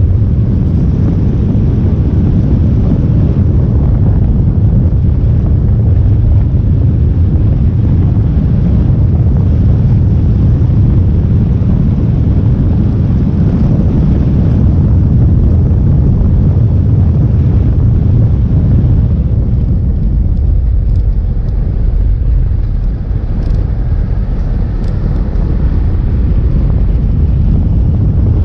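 Onboard sound of a vehicle travelling a winding mountain road: a loud, steady low rumble of engine, road and wind noise, dipping slightly about three quarters of the way through.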